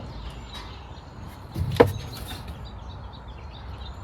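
A single sharp clunk a little under two seconds in, over a steady low rumble.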